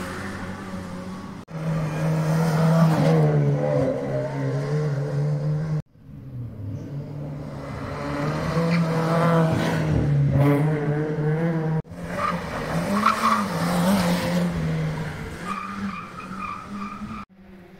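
Rally cars running hard on a stage, engines held high in the revs, heard in short clips joined by sudden cuts.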